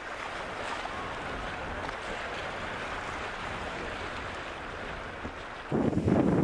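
Rough, choppy river water rushing and splashing around a paddled canoe in a strong wind. Near the end it changes abruptly to louder, gusting wind buffeting the microphone.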